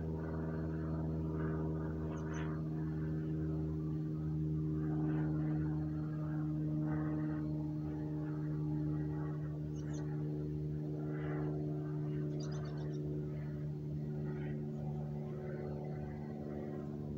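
Steady low mechanical hum with even overtones, holding one pitch throughout, with faint irregular calls and a few brief high chirps over it.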